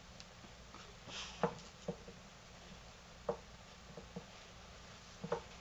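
Tamandua's claws scratching and knocking on a carpet-covered cat tree as it reaches up and climbs: a brief scrape about a second in, then a handful of scattered knocks.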